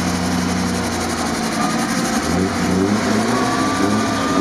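Off-road vehicle engines running: a steady idle that turns to uneven revving about two seconds in, with a faint high whine near the end.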